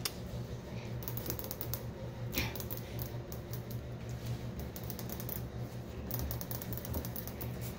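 Chihuahua puppies' claws clicking and tapping on a ceramic tile floor as they walk and play, a run of light, irregular clicks over a steady low hum.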